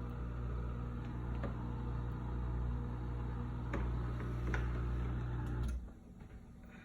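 Samsung DW80K7050 dishwasher running with a steady low electric hum and a few light clicks, then the hum cuts off suddenly near the end.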